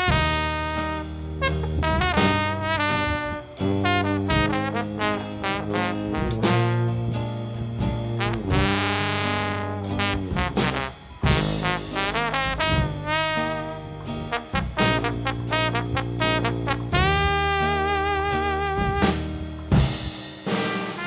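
Background music: an upbeat jazz or swing track with horns playing melodic lines over a steady bass.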